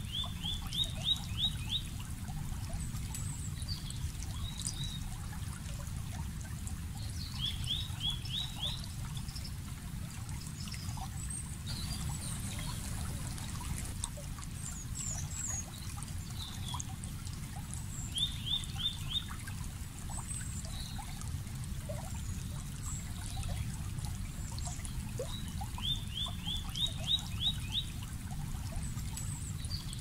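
Steady running water of a stream, with a bird singing a short quick trill of falling notes four times, several seconds apart, and scattered higher chirps from other birds.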